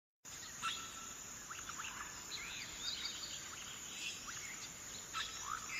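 Faint birdsong: scattered short chirps and quick sweeping calls over a steady background hiss.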